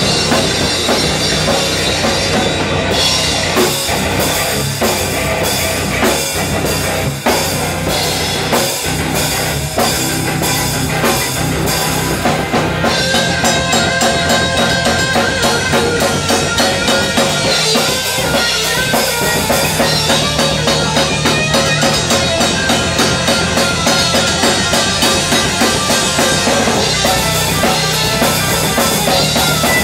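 Rock power trio playing loud and hard on drum kit, electric bass and electric guitar, with the cymbals prominent. A little before halfway, the song moves into a new section with a steadier, evenly pounding beat.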